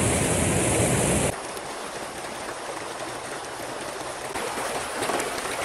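Mountain stream rushing over rocks. About a second in it cuts suddenly to a quieter, hissing flow of shallow running water.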